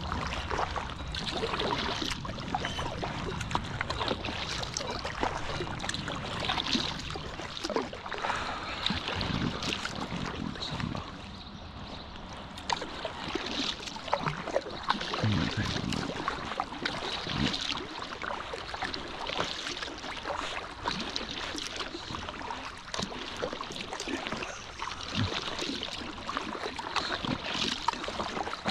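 Paddle strokes from a small inflatable packraft, each blade dipping and splashing in the lake water about every two seconds, with water trickling off the paddle between strokes.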